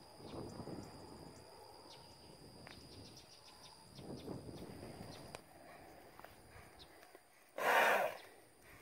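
Steady high trilling of insects, with low rustling twice. Near the end a horse gives one loud, short blowing snort.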